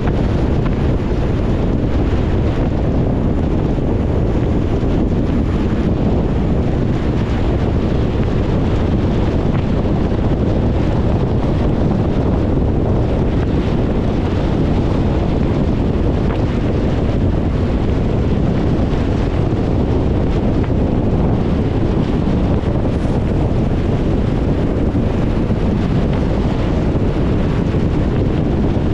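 A car driving on a wet road in the rain: a steady low rumble with the hiss of tyres on wet tarmac and wind, unchanging throughout.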